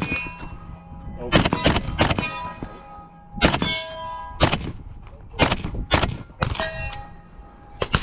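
Suppressed FN SCAR-H rifle in 7.62 NATO fired in about ten single shots at an uneven pace, some in quick pairs. Each shot is followed by a ringing metallic clang.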